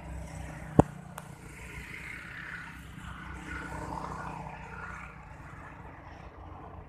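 A low, steady engine hum, with one sharp knock just under a second in and a fainter one just after.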